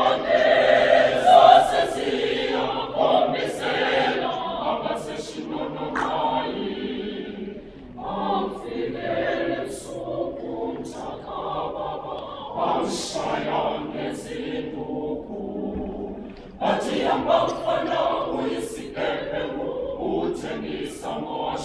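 High school choir singing in phrases, with short breaks about eight and sixteen seconds in.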